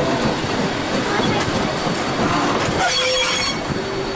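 Railway train hauled by W 192 rolling along the track, with a brief high-pitched wheel squeal about three seconds in.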